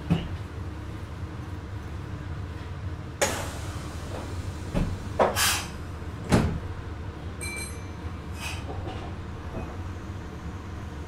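Meitetsu 6800 series train stopped with a steady low hum, its sliding passenger doors moving and thudding several times; the loudest knock comes a little past halfway. A brief high electronic tone follows about a second later.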